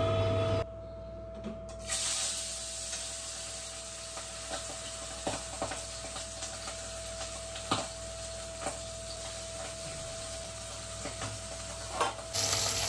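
Whole fish rubbed with salt and turmeric sizzling in hot oil in a kadai, starting abruptly about two seconds in as they go into the pan, with light clinks of a utensil against the pan and plate.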